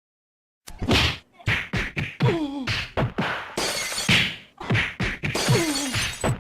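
A rapid string of short edited sound effects played back to back: hits and crashing, breaking sounds, each cut off sharply, several with a pitched tone that slides downward. It starts just under a second in.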